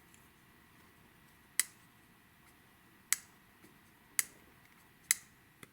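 Tangram Amarillo folding pocket knife being flicked open by its flipper tab and closed again: four sharp clicks roughly a second apart, with a fainter click near the end, as the blade breaks past its strong detent and snaps against its stop and liner lock.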